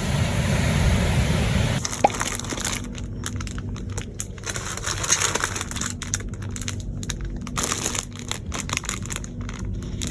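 A steady hiss for about the first two seconds, then irregular crinkling and crunching, like something being handled close to the microphone.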